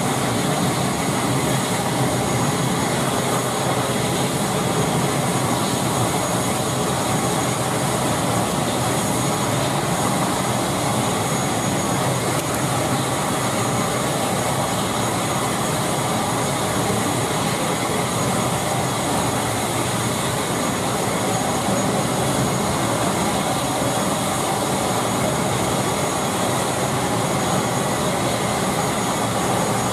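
Wings Air ATR 72 turboprop's engine running steadily while the aircraft stands at the gate: a continuous rumble and whine with steady high tones, no change in pitch or level.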